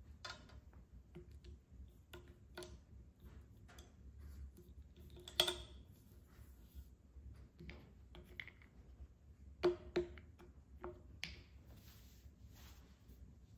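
Wooden base-ten blocks handled and set down on a paper mat over a hard tabletop: scattered light clacks and knocks. The loudest comes about five seconds in, and two more follow close together near ten seconds.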